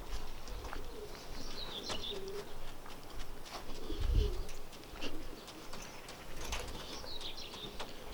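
Homing pigeons cooing softly in a transport basket, several short low coos, with scattered clicks and knocks and a brief low rumble about four seconds in.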